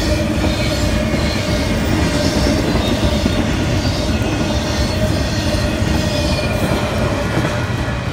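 Intermodal freight train rolling past, flatcars loaded with semi-trailers, its steel wheels rumbling on the rails. A steady tone runs through the noise, and the sound eases slightly near the end.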